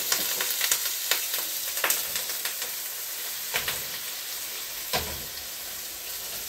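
Ground chicken frying in hot oil in a pan, a steady sizzle with crackles that are thick at first and thin out, and a few sharper pops.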